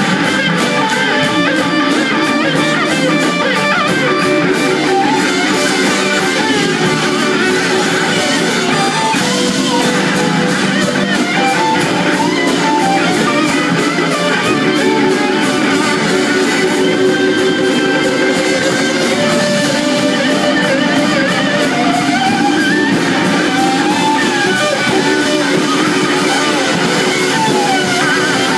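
Live electric rock band playing an instrumental passage: a lead electric guitar with notes that glide up and down in pitch over drums, bass and rhythm guitar.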